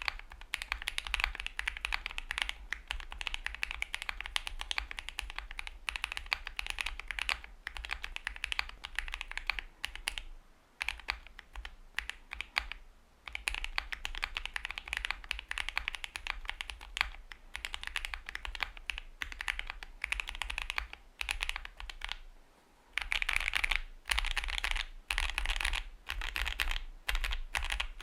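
Steady typing on a Luminkey65 mechanical keyboard fitted with Gazzew Boba U4T tactile switches, a polycarbonate plate and plate and PE foams: a dense run of keystrokes. It breaks off briefly about 11, 13 and 23 seconds in.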